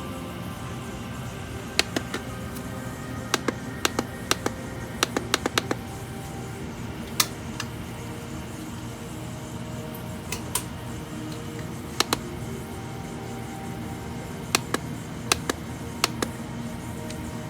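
Campfire sleep sound from a Sharp SPC585 alarm clock: a steady low rumble with irregular sharp crackles and pops, some in quick clusters.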